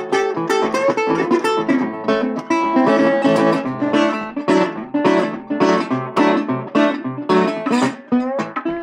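Metal-bodied resonator guitar played with a thumbpick and a metal slide: a steady, rhythmic blues pattern of thumbed bass notes under plucked, slid treble notes. Near the end there are quick rising slides.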